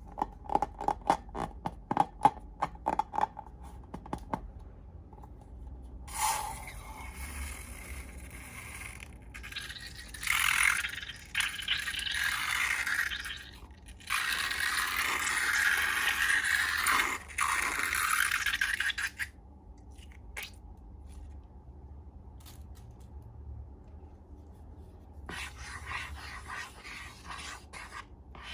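Close-up handling sounds of slime-making: a quick run of sharp clicks and pops, then several long stretches of scraping and rustling with short pauses between them.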